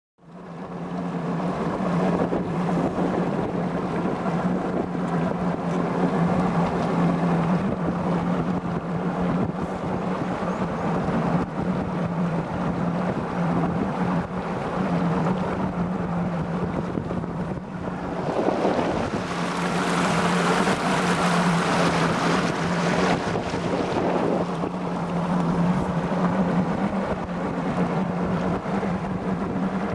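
Skeeter bass boat's outboard motor running at a steady pitch while underway, with water and wind noise over it. About two-thirds of the way through, a rush of wind and water noise swells for several seconds, then eases.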